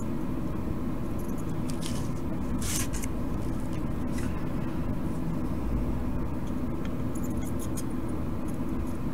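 A steady low hum, with a few faint scratches and light taps from a soldering iron tip working on the pins of a printed circuit board; the longest scratch comes about three seconds in.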